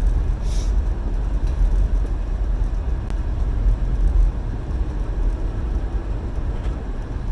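Car cabin road noise while driving on a snowy road: a steady low rumble of the engine and tyres.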